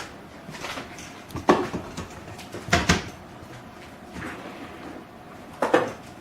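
Three sharp knocks, about a second and a half in, near the middle and near the end, with soft handling noise between them: a container being handled against the Instant Pot as pickled jalapeños are tipped in.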